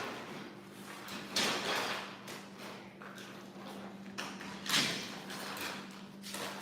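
Foosball table parts being handled during assembly: a few separate sliding scrapes, the clearest about a second and a half in and about four to five seconds in, over a steady low hum.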